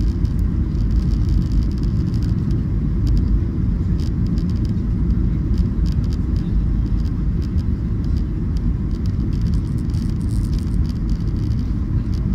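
Steady low rumble inside the cabin of a Boeing 737 airliner on descent for landing: engine and airflow noise heard through the fuselage, with light clicks and rattles scattered through it.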